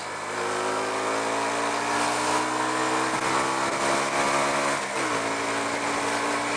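Carbureted motorcycle with a stock silenced exhaust running while riding along, its engine note steady with wind and road noise. About five seconds in, the pitch dips briefly, then settles again.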